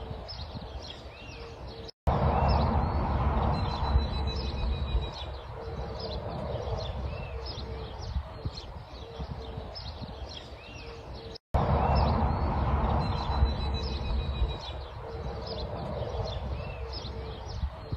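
Wild birds chirping and calling with many short rising and falling notes, over a steady faint hum. Twice the sound cuts out for a moment and comes back with a louder low rushing noise that fades over a few seconds.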